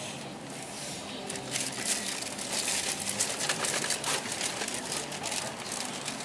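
Hino Blue Ribbon II city bus's diesel engine idling, heard from inside the cabin. From about a second and a half in, a dense crackling, rustling noise joins it.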